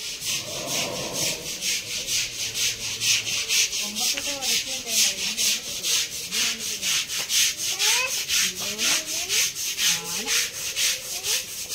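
Hand scrubbing of an elephant's wet hide: a scrubber rasped back and forth over the skin in quick, even strokes, about four a second.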